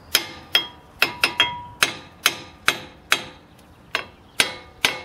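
Hammer blows on a car's front brake disc, about a dozen strikes at an uneven two or three a second, each leaving a short metallic ring. The disc is being knocked loose from the hub.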